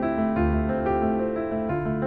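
Background music on piano-like keyboard, a steady run of sustained notes changing every few tenths of a second.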